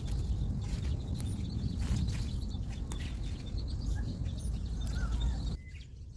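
Outdoor garden ambience: a low, uneven rumbling noise with a few faint bird chirps above it, dropping abruptly quieter near the end.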